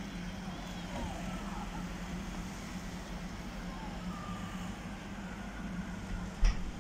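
Steady low hum of an urban street with faint, distant shouts of children playing in the snow. One short, loud thump comes near the end.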